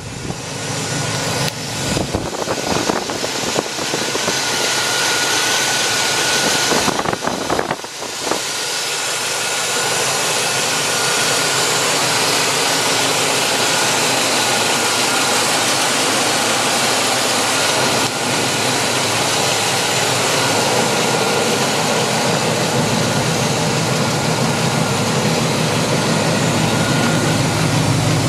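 Freshly rebuilt engine of a 1999 Chevrolet Silverado 1500 idling steadily, heard up close from the open engine bay, with a thin steady whine above the engine noise.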